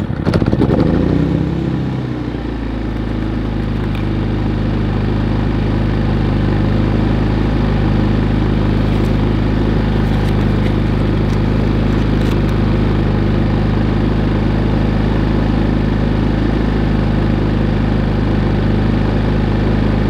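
Harbor Freight Predator 3500 inverter generator's single-cylinder four-stroke engine just after starting. Its speed falls over the first couple of seconds, then it settles into a steady run.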